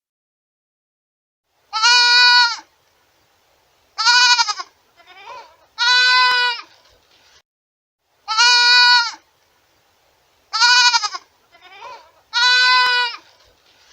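Goat bleating, about eight calls of under a second each, some loud and some fainter, separated by dead silence. The run of calls seems to repeat about halfway through.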